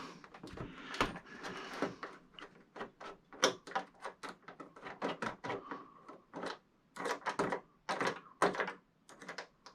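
Irregular clicks, taps and light scrapes of small screws and parts being handled and set down.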